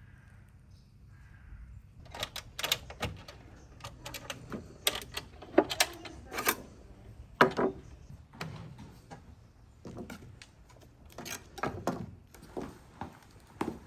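A quick, irregular series of sharp clicks and knocks starts about two seconds in, a few loud ones among many lighter ones.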